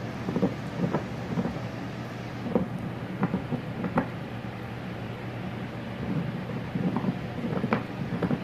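Husky puppy gnawing on a hard chew stick: irregular chewing sounds, with a few sharp clicks of teeth on the chew.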